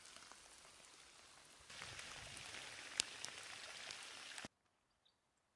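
Rain falling: a steady hiss of drops that grows louder after about a second and a half, with scattered sharp drop hits, one standing out about three seconds in. It cuts off abruptly near the end.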